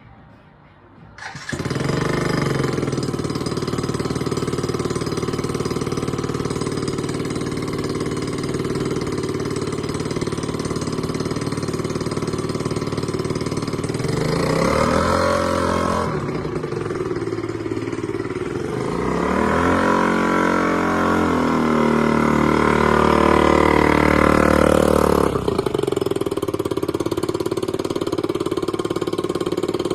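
Yamaha Jog ZR scooter engine with an aftermarket rod silencer muffler starting about a second in and idling steadily. It is revved briefly around the middle and again for several seconds a little later, then drops back to idle.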